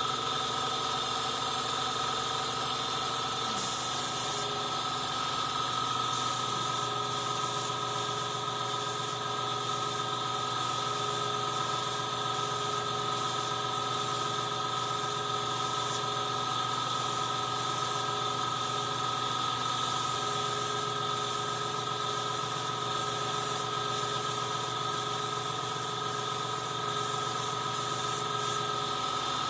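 Airbrushing: a small motor runs with a steady hum under a high, constant hiss of air from the airbrush as it sprays paint. This is typical of an airbrush compressor feeding the airbrush.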